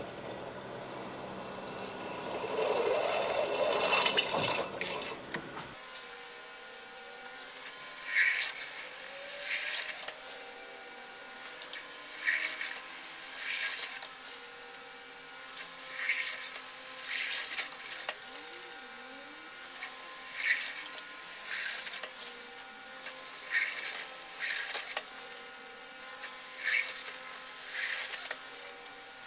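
A mill spindle drives a step-ground drill bit through the wall of a steel pipe. For the first six seconds it cuts steadily. Then the deep rumble drops away suddenly, and short, high cutting bursts repeat every second or two as the bit is fed into the steel.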